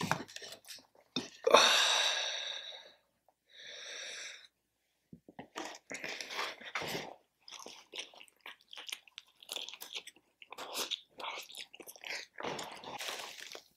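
A person biting and chewing food close to the microphone: irregular wet smacks and clicks of the mouth. Two short hissing breath-like noises come first, about two and four seconds in.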